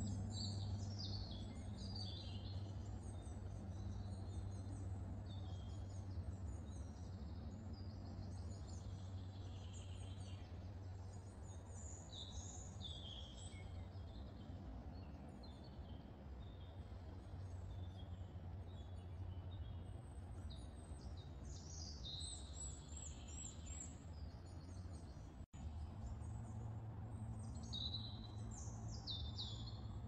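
Several songbirds singing, many short high chirps and trills overlapping, over a steady low hum. The sound cuts out for an instant about 25 seconds in.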